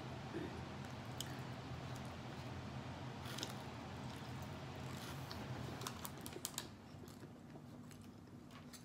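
Close-mic eating sounds: chewing a mouthful of macaroni and cheese, with scattered sharp clicks and taps and a small cluster of them about six seconds in, over a steady low hum that drops away soon after.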